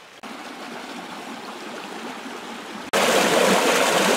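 Muddy, rain-swollen floodwater rushing over rocks, a steady rush of water that jumps much louder about three seconds in.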